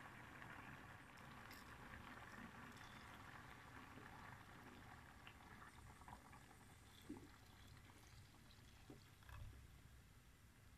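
Faint liquid sounds: thick fresh coconut milk is poured from a steel bowl into a pot of simmering corn porridge. The pouring and bubbling are steadier in the first half and fade later, with a couple of light knocks near the end.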